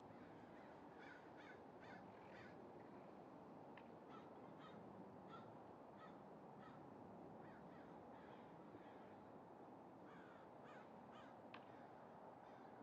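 Faint crows cawing in several runs of three or four short calls over a low steady outdoor hiss, with one sharp tick near the end.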